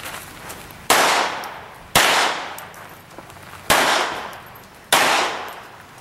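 Four pistol shots, irregularly spaced a little over a second apart, each sharp crack trailing off over about a second.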